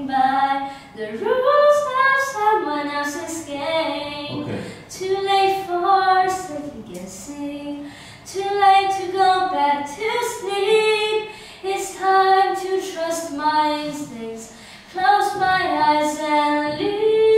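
A boy singing solo in a high, unbroken voice, with no accompaniment to be seen in the sound. He sings in melodic phrases, with short breaks for breath about a third of the way in and again near the end.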